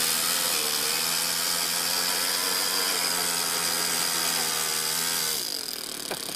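Toyan FS-S100 four-stroke single-cylinder overhead-cam model engine in an RC crawler running at steady held revs, then the revs and loudness drop away about five seconds in.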